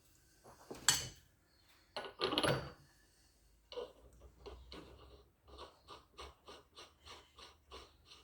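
Home-made 3-ton hydraulic press being worked to push a tight neoprene trailing arm bush into its housing: a sharp click about a second in, a short rasping noise, then the jack being pumped in quick, even strokes, about three a second.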